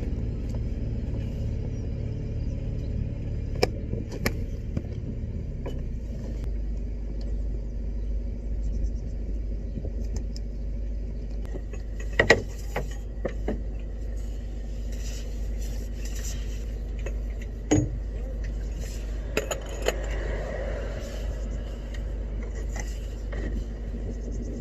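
A vehicle engine running steadily with a low rumble, with occasional metallic clinks and knocks from handling hardware, the loudest a little after twelve seconds in and near eighteen seconds in.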